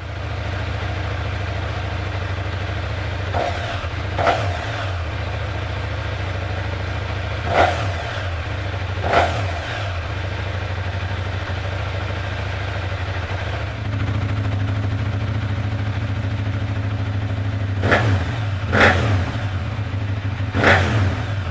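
Motorcycle engine on a gutted or standard exhaust (KTM 790 parallel twin) idling steadily, with seven short throttle blips that rise and fall back to idle. About two-thirds of the way through, the idle steps up to a slightly louder, deeper hum.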